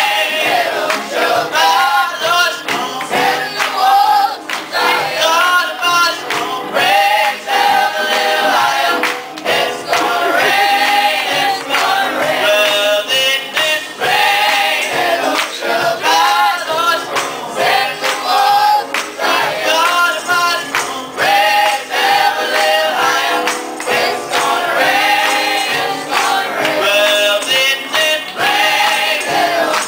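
Boys' choir singing a song together, with a lead voice over the group and hand claps keeping time.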